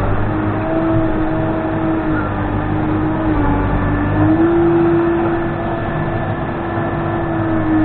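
Case 580N backhoe loader's diesel engine running steadily under work, its pitch dipping slightly about three seconds in and rising again a second later.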